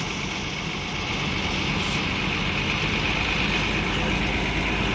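Mercedes-Benz intercity bus's diesel engine running steadily as the bus gets under way, with a steady hiss over the low rumble.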